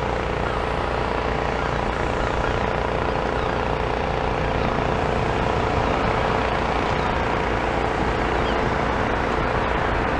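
Steady road traffic noise with a constant engine hum running through it.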